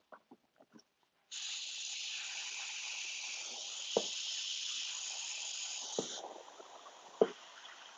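Airbrush spraying paint: a steady hiss of air starts about a second in and drops to a softer hiss after about six seconds. Three light knocks come through it.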